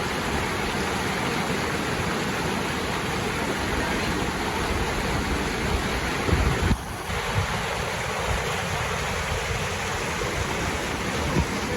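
River rapids rushing steadily, an even wash of whitewater noise. About two-thirds of the way through, a few low bumps of wind hit the microphone.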